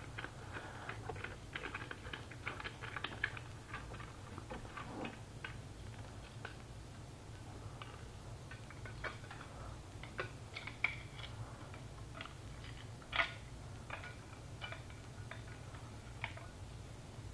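Small irregular metal clicks and scrapes of a folding military trench shovel being handled while its screw locking collar is turned tight, with one sharper knock about thirteen seconds in.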